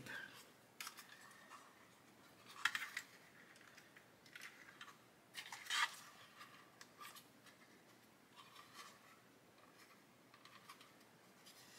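Faint clicks, taps and light scraping of plastic model-kit hull parts being handled and pressed together, with two louder clicks about three and six seconds in.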